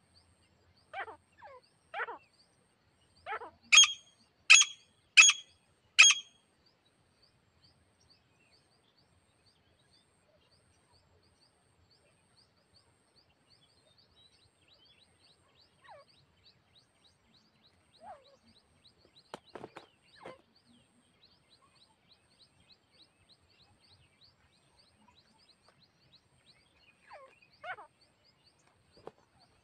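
Grey francolin (titar) calling: a run of about seven loud, ringing calls in the first six seconds, then a few fainter calls later on. A faint, fast, steady ticking runs underneath.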